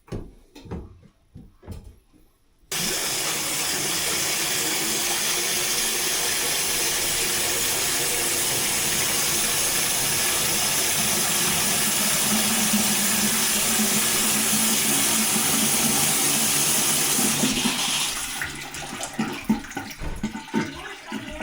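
Water rushing steadily in a kitchen sink as it gets a good flush down a freshly unblocked drain. It starts suddenly about three seconds in after a few light knocks, and breaks up and eases off near the end.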